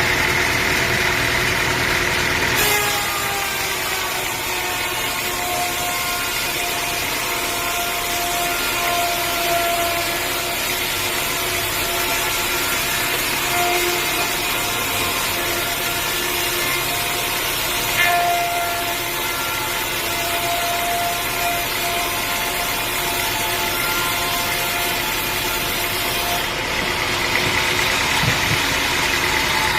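Engine-driven sawmill blade cutting through a log, a steady whirring cut that starts about three seconds in and ends shortly before the close, with the engine running on either side.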